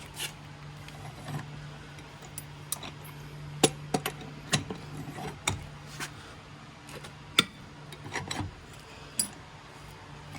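Lug wrench on the lug nuts of a Jeep Wrangler wheel, breaking them loose: irregular sharp metallic clicks and clinks, a dozen or so spread unevenly.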